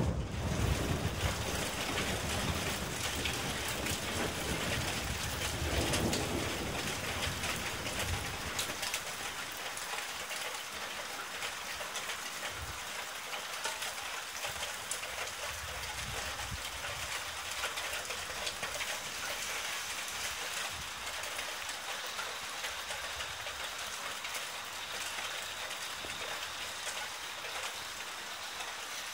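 Steady rain falling, an even hiss throughout. A low rumble underneath fades away about a third of the way in.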